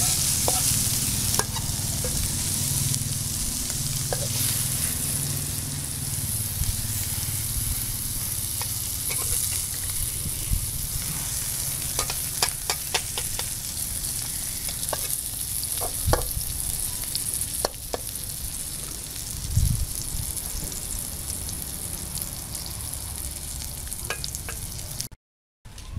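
Egg omelette sizzling steadily in a stainless steel pan. A metal spatula scrapes and taps against the pan as the omelette is turned, with a cluster of sharp clicks in the middle.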